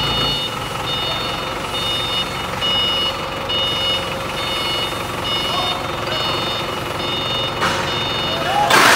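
A Hangcha forklift's reversing alarm beeping steadily, a little faster than once a second, as the forklift backs up. A short, loud rushing noise comes near the end.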